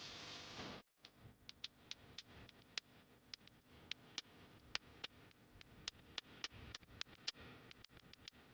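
A run of short, sharp clicks, irregular at about three or four a second, over a quiet background, after a brief hiss that cuts off about a second in.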